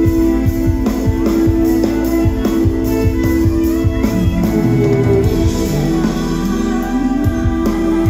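Live concert music in an instrumental passage: held chords over a pulsing low beat, with a melodic line sliding down and back up around the middle.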